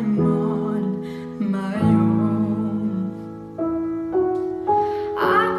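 Background music: soft keyboard chords with a sung melody coming in near the end.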